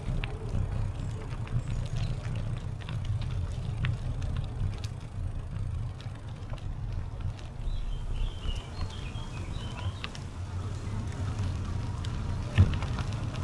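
Bicycle rolling along a trail: a steady low rumble of tyres and riding, with scattered small clicks and rattles. A bird chirps a few times about eight to ten seconds in. A single sharp knock near the end is the loudest sound.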